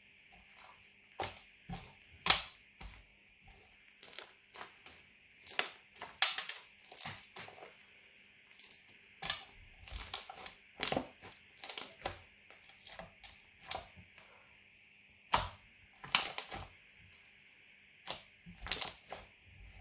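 Glitter slime being worked by hand, with irregular sharp pops and crackles as air bubbles in it burst.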